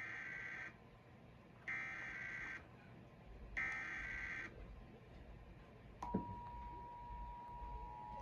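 Emergency Alert System SAME header: three short bursts of warbling digital data tones, about a second apart. About a second and a half after the last burst comes the EAS two-tone attention signal, a steady dual tone that opens a Required Monthly Test alert.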